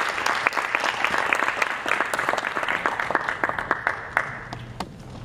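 Audience applauding, dying away to a few last claps a little past four seconds in.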